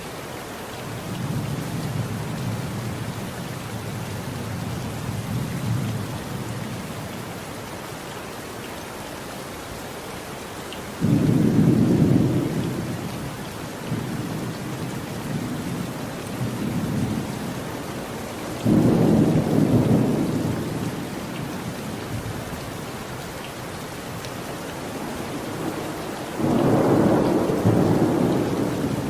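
Steady rain with thunder. A low distant rumble comes in the first few seconds, then three loud thunderclaps break in suddenly and rumble off: one about a third of the way in, one past the middle, and one near the end.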